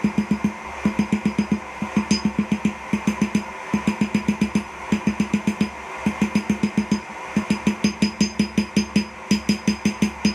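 Hand hammer striking hot 3/8-inch round steel bar on an anvil, in quick runs of about five to eight blows at roughly five a second, with short pauses between runs, over a steady hum.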